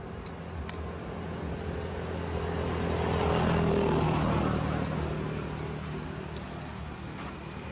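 A motor vehicle passing by: a steady engine hum with tyre noise that swells to its loudest about halfway through and then fades away.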